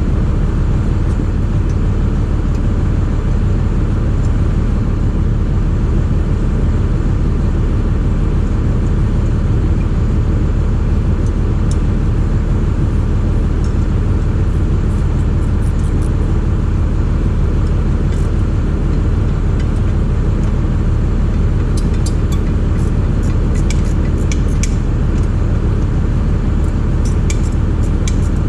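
An engine runs steadily at a constant speed, a low drone that never changes. Near the end come light scattered metallic clicks and clinks of hand tools.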